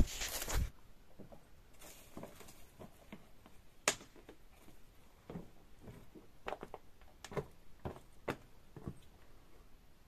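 Faint, irregular footsteps and rustling of a person walking off over rough ground, with one sharper click about four seconds in.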